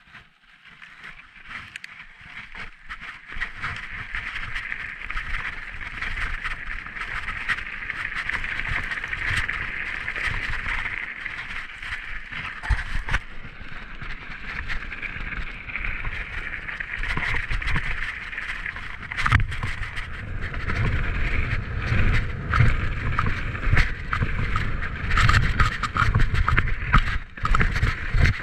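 Mountain bike rolling down a snowy, icy trail, heard from a chest-mounted action camera: a steady hiss of tyres with rattling of the chain and frame. It builds up over the first few seconds, and from about two-thirds of the way in, heavier knocks over bumps grow louder as the trail turns to rough dirt.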